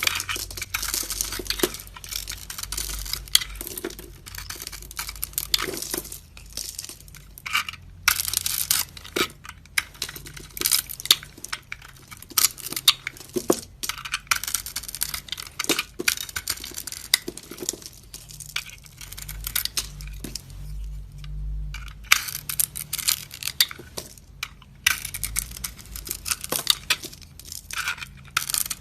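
Knife cutting and scraping dry bar soap: a long, irregular run of crisp crunching and crackling strokes with occasional sharp clicks.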